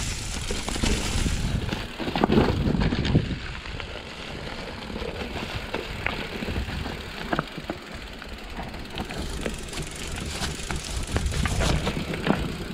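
Mountain bike rolling down a leaf-covered forest trail: tyres crunching over dry leaves, dirt and stones, with the bike knocking and rattling over bumps and a steady low rumble. The bumps are hardest about two to three seconds in.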